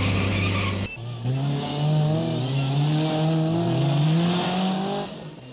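Mini Cooper engines revving hard and accelerating up through the gears, the pitch climbing and dropping back several times with each shift. A steadier engine drone at the start cuts off abruptly about a second in.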